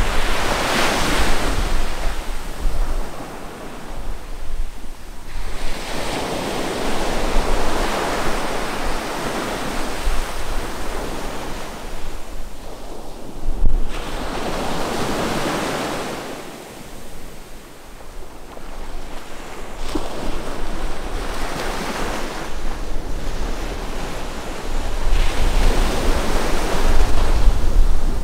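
Small ocean waves breaking and washing up a sandy beach, the surf swelling and fading every few seconds. Wind rumbles on the microphone throughout, strongest near the end.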